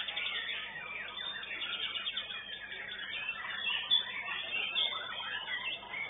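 Several white-rumped shamas singing at once: a dense, unbroken tangle of rapid, shifting high whistles and trills.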